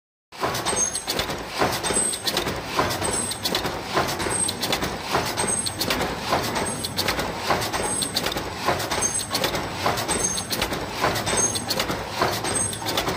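Multi-station wire-bending machine running, its steel bending levers and dies clattering in a steady rhythm of a little more than one stroke a second over continuous machine noise.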